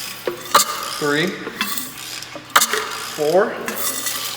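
A freshly rebuilt Mazda 13B rotary engine being turned over by hand with a hand tool, making mechanical clicking and scraping, with a sharp click about every two seconds. The engine is being checked for six even compression pulses.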